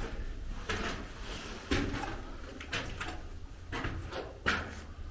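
Slow footsteps scuffing and crunching on a gritty concrete floor, about one step a second, in an arched concrete tunnel.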